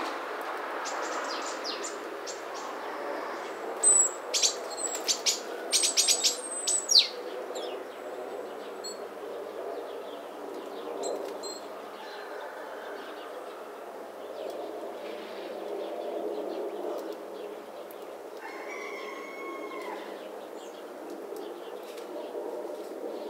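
Great tits calling: a quick run of about ten sharp, high chirps a few seconds in, over a steady low background noise. Later comes one short, steady whistle-like tone.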